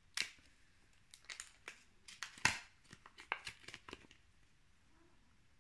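Packaging crinkling and tearing in a run of sharp crackles as it is opened by hand, loudest about two and a half seconds in; the crackling stops about four seconds in.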